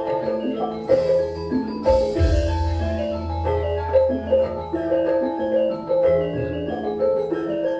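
Gamelan-style music with struck metallophone notes ringing in a running pattern, and a heavy low drum or gong stroke with a splash of cymbal-like hiss about two seconds in.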